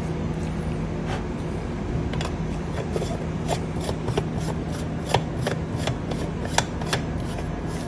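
Hands handling small hard parts: light, irregular clicks and rubbing over a steady low hum.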